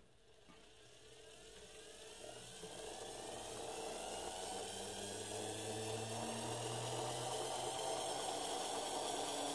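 Toy-car gear train and flywheel spinning a pair of magnets, a whirring whine that rises steadily in pitch and grows louder as it speeds up.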